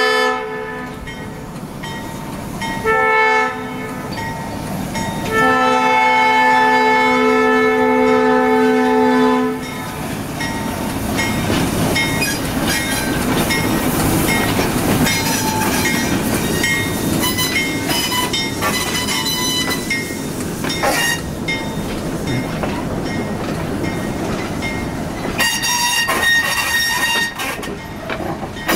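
Diesel switcher locomotive horn sounding for a grade crossing: the tail of one long blast, a short blast about three seconds in, then a long blast of about four seconds. After that the locomotive rumbles past close by and the passenger cars roll through with steady wheel clatter over the rail joints, with a brief high tone near the end.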